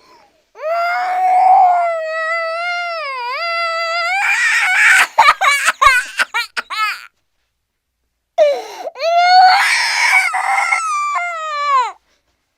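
Cartoon crying sound effect: a high-pitched wailing cry held long with a wavering, dipping pitch, breaking into quick choppy sobs, then after a short pause a second wail that trails off downward.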